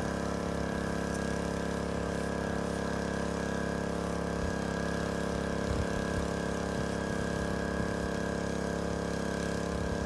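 An engine running steadily at an even speed, its hum holding one pitch throughout.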